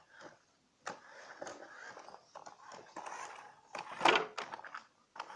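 A run of scattered knocks and clicks at uneven spacing, with one louder thud about four seconds in.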